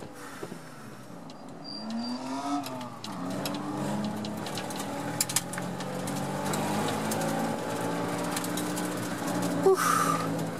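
Engine of a 1990 Honda Civic Si, a 1.6-litre four-cylinder, heard inside the cabin as the car slows after a timed autocross run. Its pitch dips and rises over the first few seconds, then it runs steadily at low revs with the car rolling slowly. A brief sharp sound with a quick rise in pitch comes near the end.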